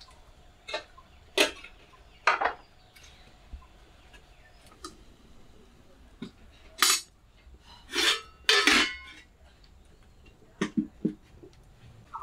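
Metal cooking pots and a kettle clinking and clanking as they are picked up and set down: a string of separate knocks, with a longer scraping clatter about eight seconds in and a few small taps near the end.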